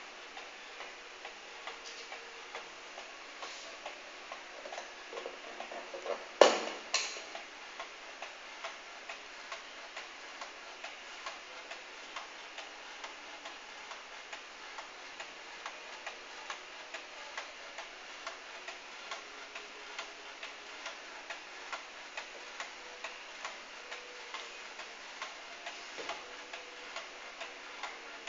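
An 1881 New Haven walnut kitchen clock's pendulum movement ticking in a steady, even tick-tock. A single sharp knock, followed by a softer one, comes about six and a half seconds in.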